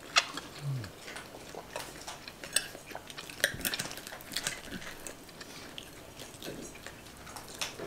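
Forks and knives clinking and scraping on plates while people eat, as a scatter of light, irregular clicks.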